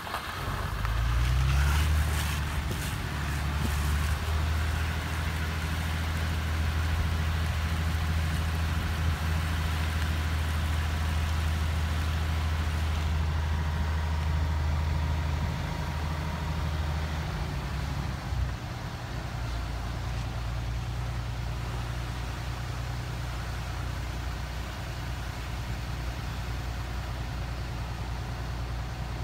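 Vehicle engine and road noise heard from inside the cab while driving slowly. The engine note rises as it pulls away just after the start, holds steady, then drops to a lower, steady note about two-thirds of the way through as it eases off.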